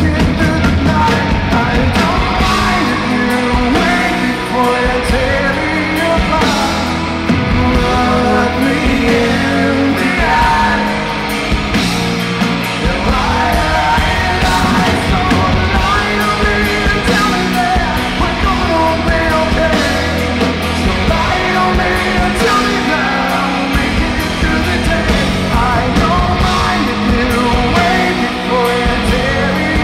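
Live rock band playing: a male lead voice sings over electric guitar and a drum kit.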